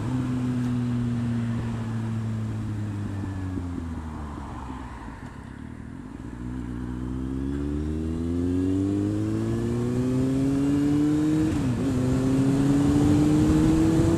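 Kawasaki Z750R's inline-four engine on the move. It eases off and drops in pitch, then accelerates with a steadily rising note. There is a brief dip, like a gear change, near the end, before it pulls again.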